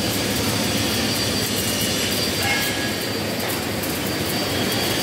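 Flux-cored arc welding (FCAW): the wire-fed arc sizzling and crackling steadily, with a low steady hum underneath.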